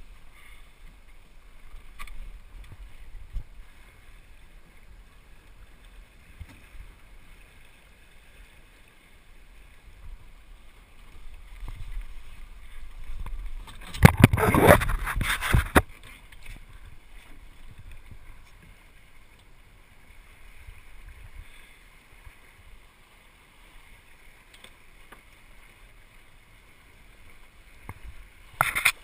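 Water washing along the hull of a small El Toro sailing dinghy under way, over a low rumble. About halfway through, a loud rushing noise lasts about two seconds, and a shorter one comes near the end.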